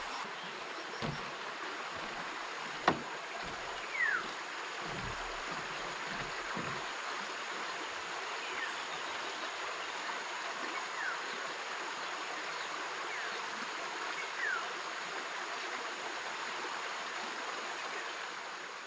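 Steady rushing of a flowing stream, with a sharp click about three seconds in and a few faint, short falling chirps now and then.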